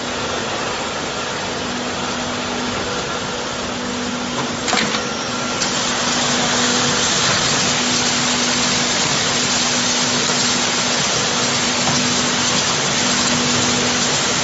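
Automatic crate washing machine running: a steady motor hum under a rushing hiss of water spray. There is a short clatter a little under five seconds in, and the spray hiss then grows louder and stays steady.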